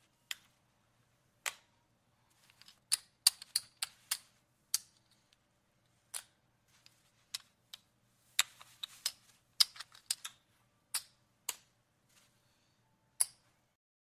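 Casino chips being handled, clicking against one another in irregular single clicks and quick little clusters, with short pauses between.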